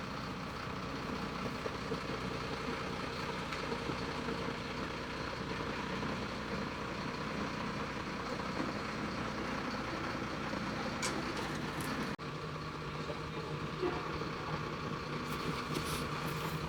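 A truck engine idling steadily, typical of a delivery truck running while it unloads building supplies.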